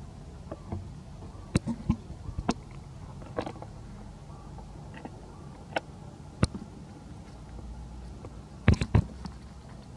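Baby macaque biting and chewing fruit close up: sharp, wet clicks and smacks in irregular bunches, the loudest pair near the end, over a steady low background noise.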